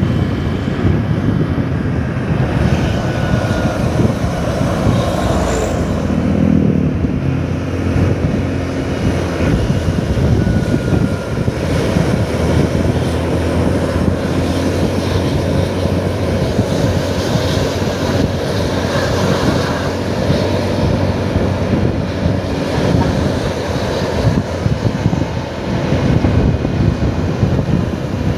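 Heavy wind rush on the microphone of a moving motorcycle, over the steady drone of engines, while the rider follows a bus along the highway.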